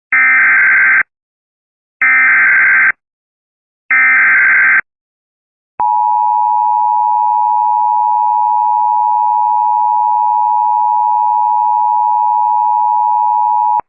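Emergency Alert System activation. Three one-second bursts of SAME header data tones come about a second apart. They are followed by the two-tone EAS attention signal, which holds steady for about eight seconds and then cuts off. This sequence marks the start of a new emergency alert.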